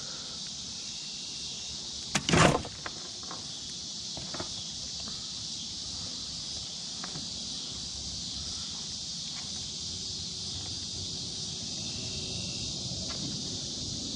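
Steady, high-pitched chorus of late-summer insects, with a short cluster of sharp knocks about two seconds in.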